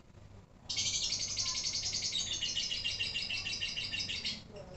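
Female lovebird singing its long chattering trill, the "ngekek" prized in kicau-mania lovebirds: a fast run of high, rapidly repeated notes going "mbebek… cerrrr", starting about half a second in, lasting about three and a half seconds and stopping abruptly.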